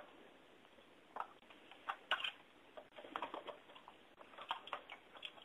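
Irregular light clicks and scrapes of small plastic and metal parts inside an Epson inkjet printer, worked with a thin hooked tool while fitting a spring.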